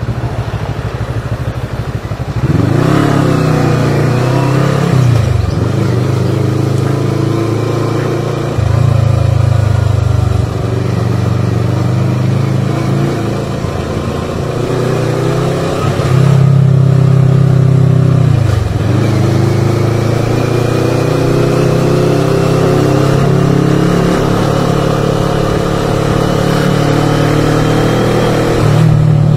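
CFMoto 400GT's parallel-twin engine running under way, its note rising and falling with the throttle. The level steps up about two seconds in, and the engine note briefly drops twice, around five and eighteen seconds in.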